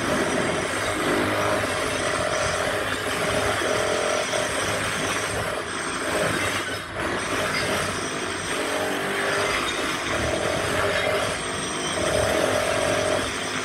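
Demolition power tools breaking up tiled paving: a continuous loud grinding, rattling noise, with a motor whine that comes and goes.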